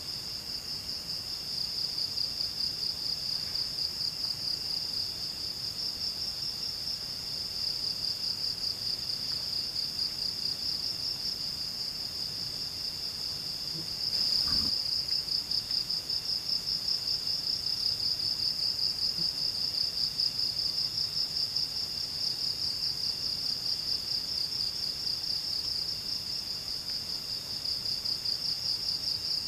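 Night insects calling in the forest: one loud, steady, high-pitched trill pulsing rapidly, with a fainter, lower insect call coming and going in phrases of a couple of seconds. A single brief knock about halfway through.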